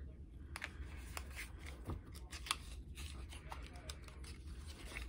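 Light, irregular clicks and short rustles of hands handling small cosmetics packaging, a small cardboard box and its contents.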